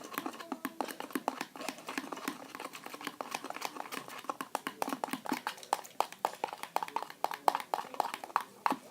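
Sticky hand-soap-and-salt slime being mixed, making a quick, irregular run of wet clicks and smacks that grows louder near the end.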